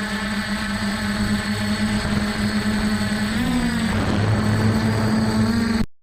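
F450 quadcopter's motors and stock propellers humming steadily in flight. Its pitch wavers and shifts a little around the middle with a throttle change, and the sound cuts out for a moment near the end.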